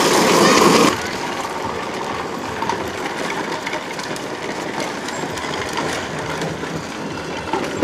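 Hard plastic wheels of a child's Big Wheel-style tricycle and toy pedal car rolling on asphalt, a steady rough rumble. It is louder for about the first second, then drops abruptly to a lower, even rumble.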